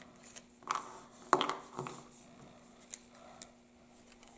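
A few light clicks and knocks as small plastic alcohol ink bottles are handled and set down on a work table, the loudest about a second in, over a faint steady hum.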